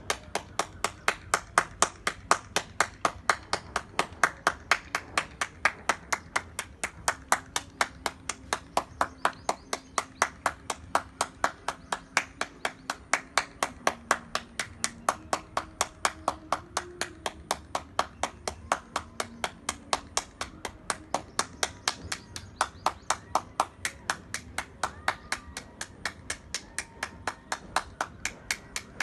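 One person clapping hands steadily and evenly, about three sharp claps a second.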